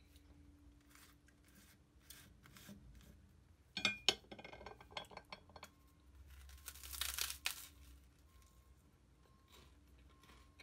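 Quiet eating and tableware sounds: a quick cluster of sharp clicks about four seconds in, like wooden chopsticks set down on a ceramic plate, then a short crisp crunch around seven seconds in, with a few faint clicks between.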